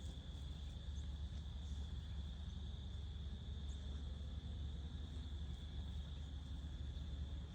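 Steady background noise: a low rumble with a constant thin, high-pitched whine over it, and no distinct events.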